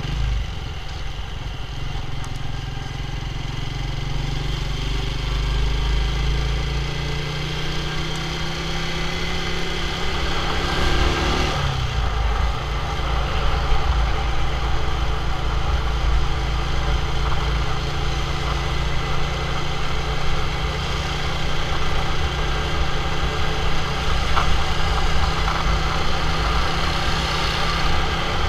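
Motorcycle engine running under way, its pitch climbing as it speeds up, dropping suddenly just before halfway as if at a gear change, then holding steady at cruising speed. Road and wind noise run under it.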